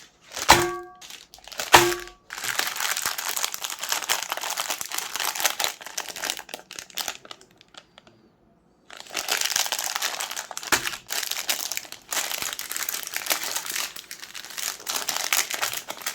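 Plastic ice cream wrappers crinkling and being crumpled in dense, continuous crackling, broken by a short pause about halfway through. Two short pitched tones sound in the first two seconds.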